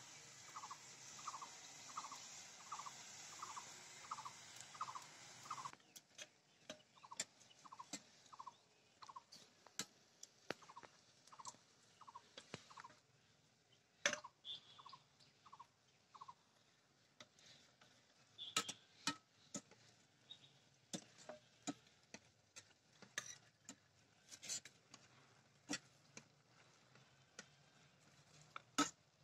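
A bird repeats a short call about twice a second through the first half, then falls silent. Sharp metallic taps of a slotted ladle against the frying pan sound throughout and come thicker in the second half. A faint hiss of oil sizzling drops away about six seconds in.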